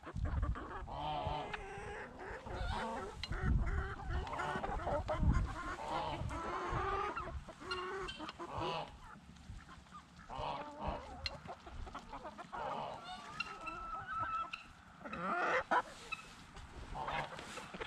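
Chickens clucking and a domestic goose honking off and on while the mixed flock feeds.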